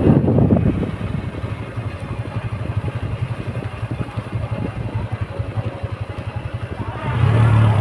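Motorcycle engine running as the bike rides along, heard from the bike itself as a fast, even stream of firing pulses; the engine note swells louder and steadier about seven seconds in.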